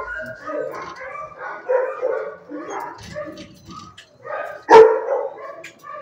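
Shelter dogs barking and yipping in a quick run of short calls, with one sharp, loud bark near the end.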